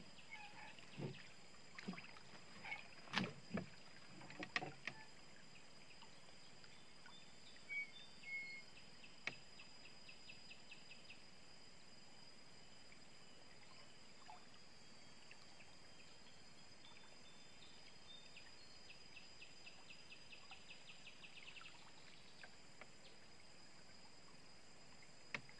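A few sharp knocks and taps of hands and fishing gear against a wooden boat, mostly in the first few seconds. Then a quiet stretch with a steady faint high whine and short runs of quick faint high ticking, about six a second.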